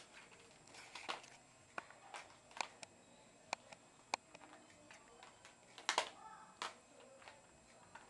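Plastic TV remote control and cordless phone handset being handled by a baby: irregular clicks and knocks as they bump together and against the floor, the loudest about six seconds in.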